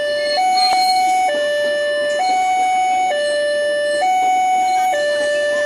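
Railway level-crossing warning alarm sounding its two-tone signal, a higher and a lower tone taking turns about once a second. Underneath runs the noise of the passing train's coaches, with an occasional click.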